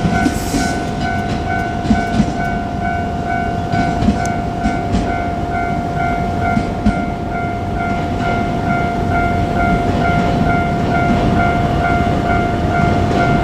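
Japanese level-crossing warning bell ringing in a fast, even repeat, over the low rumble of a JR Kyushu 817 series electric train, with a few sharp wheel clacks from the rails.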